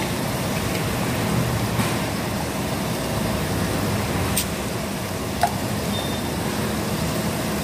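Steady hiss of meat grilling on a hot tabletop grill pan over a low hum, with a couple of sharp clicks of metal tongs about four and five and a half seconds in.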